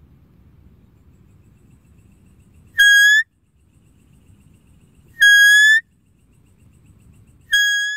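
Deer calling three times, each a short, high, whistle-like call of about half a second at a steady pitch that lifts slightly at the end. A faint low rumble fills the gaps between calls.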